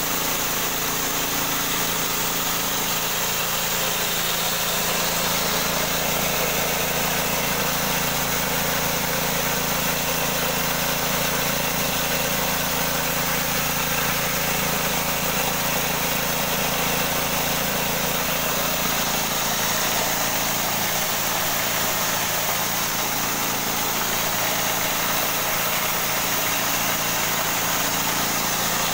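Lesung mini rice mill running steadily on its small engine while milling dried corn kernels: a constant engine drone under an even hiss of grain passing through the machine. A little over halfway through, the deepest part of the drone drops away while the overall level stays the same.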